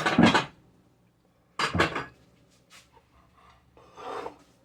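Dishes and utensils being handled: three short bursts of rubbing and clattering, the first and second the loudest.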